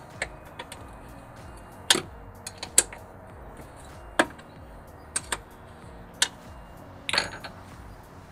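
Steel ring spanner clinking on the 12 mm bolts of a diesel fuel filter housing bracket as it is fitted, turned and refitted to undo them: about a dozen sharp, irregular metal clicks.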